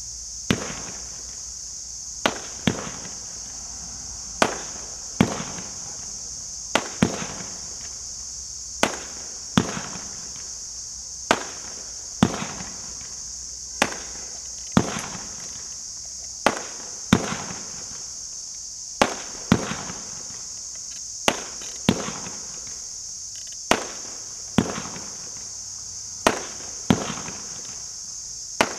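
A 30-shot daytime parachute fireworks cake firing its shots one after another, about one sharp report a second, now and then two in quick succession. A steady high-pitched buzz runs underneath.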